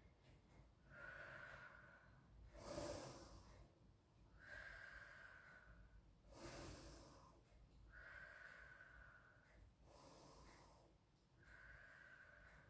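A woman breathing slowly and faintly while holding a deep forward-fold stretch: about three and a half breaths, longer and shorter breaths taking turns every second or two.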